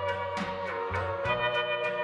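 Background music: a sustained melody over a bass line, with light percussion ticking a steady beat.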